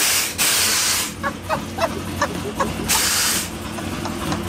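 Nitrous purge valve venting twice in loud hissing sprays, the first about a second long and the second a shorter blast about three seconds in, over a steady idling engine.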